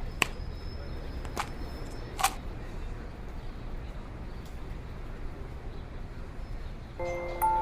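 Steady low rumble and hiss with three sharp clicks in the first couple of seconds. About seven seconds in, a slow, sad music-box tune starts again.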